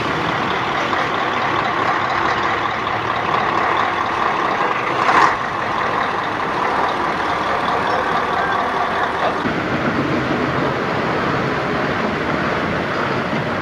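Heavy trucks running on a muddy road: a steady engine and road noise, with one short sharp knock about five seconds in.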